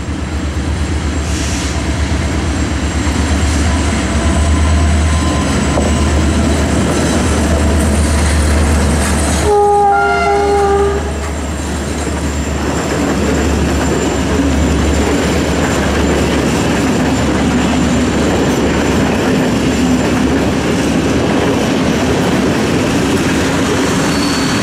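Approaching passenger train: a deep, steady locomotive rumble, with one horn blast lasting about a second and a half, about ten seconds in.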